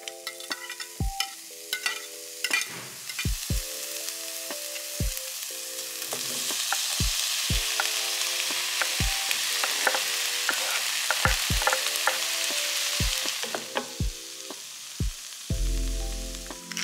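Diced onion and garlic sizzling in hot oil in a frying pan. About six seconds in, as chopped cherry tomatoes go into the pan, the sizzle grows much louder and then dies back near the end. Background music with a steady beat plays throughout.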